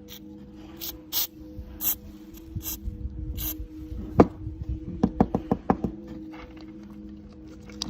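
Hand work knocking and tapping on parts during an electric fan restoration: short hissy scrapes, then one loud knock about four seconds in and a quick run of about six sharp taps, over a steady low hum.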